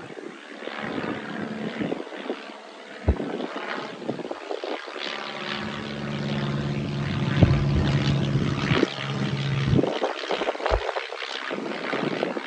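Light propeller aircraft flying overhead: its engine drone swells to a peak a little past halfway, then drops away.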